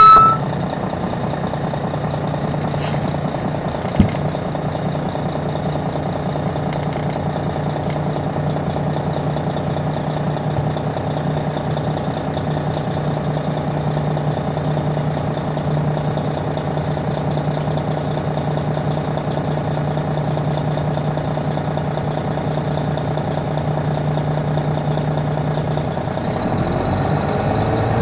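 Detroit Diesel Series 60 diesel engine of an MCI D4000 coach heard from inside the bus, running steadily, then revving up near the end as the bus pulls away. A single sharp click about four seconds in.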